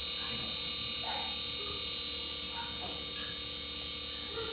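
Mitsubishi 4-ton floor-standing inverter air conditioner running with its compressor and outdoor fan motor on after its power supply was repaired: a steady high-pitched whine over a lower hum.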